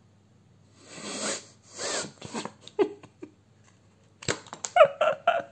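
Breathy sniffs and a few light clicks from handling trading cards, then a run of short pitched vocal sounds near the end.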